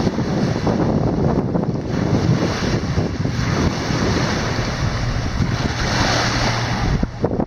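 Strong storm wind buffeting the microphone, over choppy wind-driven lake waves splashing against a grassy bank and dock pilings. The wind eases briefly near the end.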